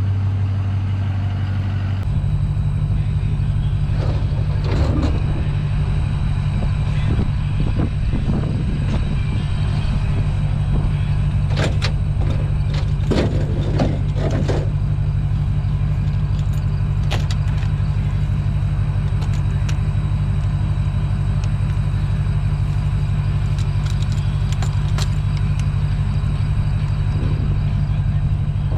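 Motor vehicle engine running steadily, its note shifting about two seconds in, with scattered rattles and knocks from the vehicle as it goes.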